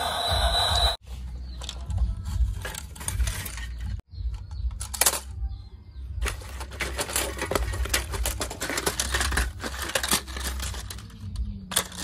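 Hard plastic toy pieces being handled and set down: irregular clicks, clacks and rattles of plastic knocking on plastic, with one louder clack about five seconds in. Background music plays for about the first second and then cuts off.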